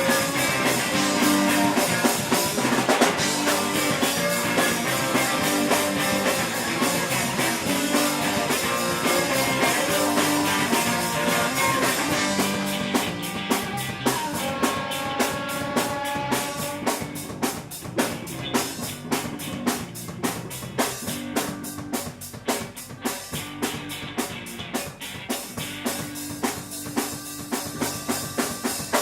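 Live rock band playing an instrumental passage with guitar and drum kit, no vocals. About twelve seconds in the sound thins out and the drums' steady beat comes to the front.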